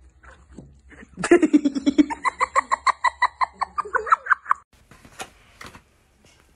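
A person laughing hard in a rapid run of about six 'ha' pulses a second, starting low and climbing higher in pitch over about three seconds before breaking off. Two short clicks follow near the end.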